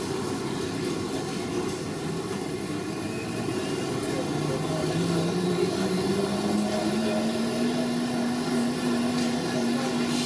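Aircraft tow tractor's engine running under load as it tows an airliner, over a steady hum; about four seconds in its tone rises and then holds steady.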